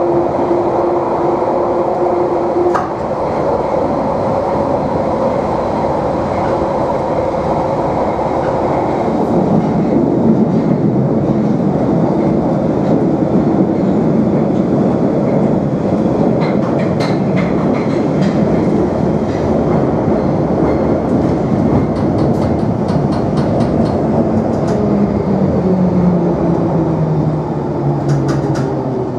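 London Underground 1972 Tube Stock train running through a tunnel, heard from inside the car: a loud, steady rumble of wheels and motors. Rail-joint clicks come in from about halfway, and near the end the motor whine falls in pitch as the train slows.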